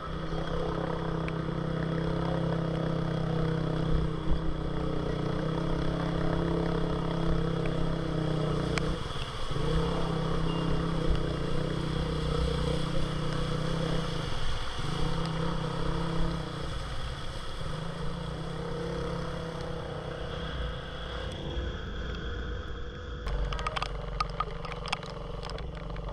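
Kawasaki Fury 125 motorcycle engine running steadily at held revs with its muffler fully submerged in floodwater, dipping briefly a few times. The rider holds the brake and keeps it revving so exhaust pressure stops water entering the engine through the exhaust. Near the end the sound changes, with a few sharp clicks.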